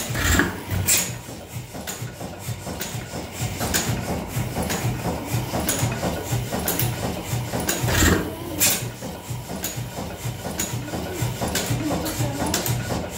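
Large antique horizontal stationary engine with a heavy spoked flywheel running slowly, a steady low thumping with a few sharp beats at uneven intervals, some a second apart and some about four seconds apart.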